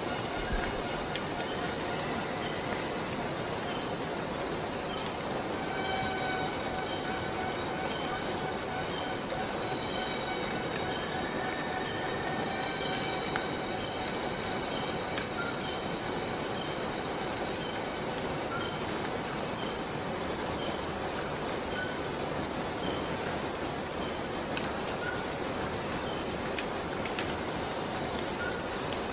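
Steady insect chorus: a dense, shrill drone with a faint chirp repeating about twice a second.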